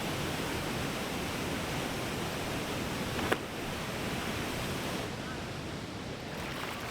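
Steady rush of a waterfall's falling water close to the microphone, with a single sharp click about three seconds in.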